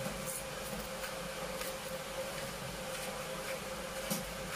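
Steady hiss and constant hum from a pot of coconut milk heating on a stove, with a few faint ticks.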